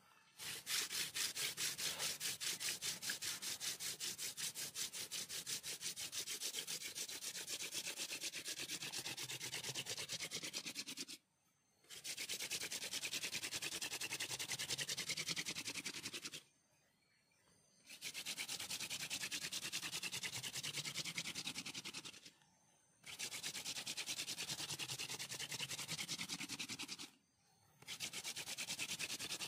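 Hand-drill friction fire: a wooden spindle spun fast back and forth between the palms, its tip rubbing and grinding into a wooden hearth board. It runs in long stretches, a first one of about eleven seconds and then several of four to five seconds, with brief silent breaks as the hands go back up the spindle.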